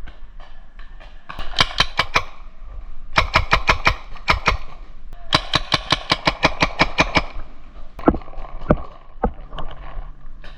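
Paintball markers firing in quick volleys of sharp pops, about seven shots a second, three volleys in a row, then a few single shots near the end.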